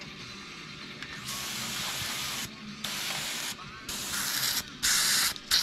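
Airbrush spraying paint in five short bursts of hiss, each under about a second long, starting about a second in; the last two bursts are the loudest.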